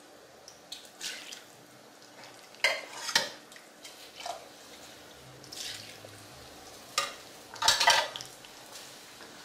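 Kitchen utensils scraping and clinking against cookware in short, scattered strokes, with the loudest scrape a little before the end.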